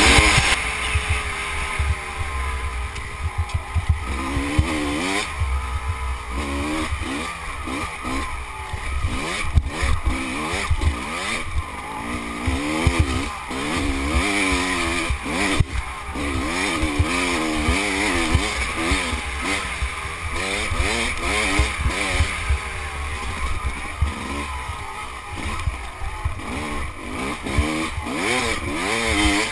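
Off-road racing motorcycle engine under hard riding, its pitch climbing and dropping again and again with throttle and gear changes. Wind rumbles on the helmet microphone underneath, with occasional knocks from the rough trail.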